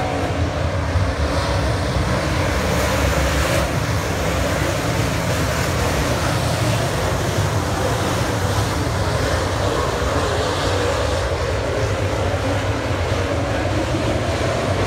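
A pack of dirt late model stock cars racing, their V8 engines running hard together in a loud, steady drone.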